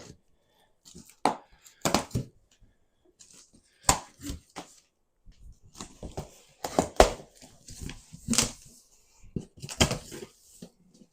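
Cardboard shipping box being cut open with a knife: a string of short, irregular slicing and ripping strokes through packing tape and cardboard.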